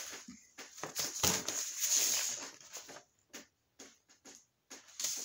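Handling noise: a sheet of printer paper rustling and crackling in the hand, with irregular taps and clicks and short quiet gaps in between.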